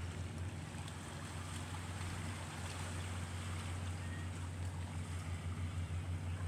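Boat engine idling: a steady low hum that does not change, with a faint wash of wind and water.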